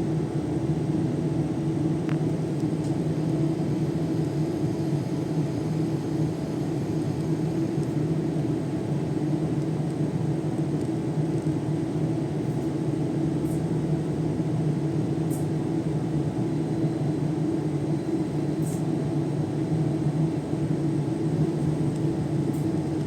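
Steady running drone of a city public-transport vehicle heard from inside while it moves, with a constant low motor hum.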